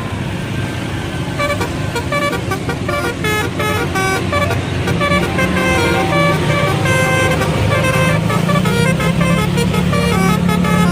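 Bus telolet horn playing a fast tune of short stepping notes, starting about a second and a half in, over the bus's engine running, whose low hum grows louder in the second half.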